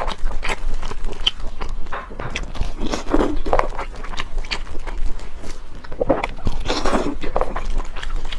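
Close-miked eating of cola chicken wings: biting and chewing, with irregular wet mouth clicks and smacks.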